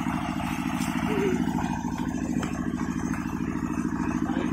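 An engine idling steadily with a low, even chugging throb.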